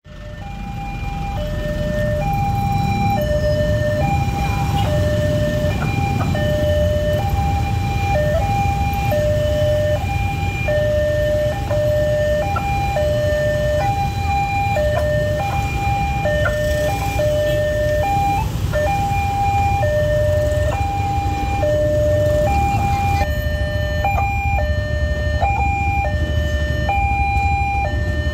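Railway level-crossing warning alarm sounding a repeated electronic two-tone signal, alternating high and low about once a second. Underneath is a steady low rumble of waiting motorcycle and car engines.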